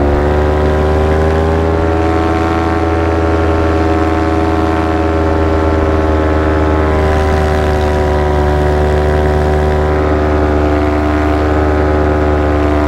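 Paramotor engine and propeller running steadily in flight, a loud drone that rises slightly in pitch at the start and then holds steady.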